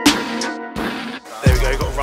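Background music with a hip-hop style beat. About one and a half seconds in it breaks off with a sudden thump, and live outdoor sound with a steady low rumble takes over.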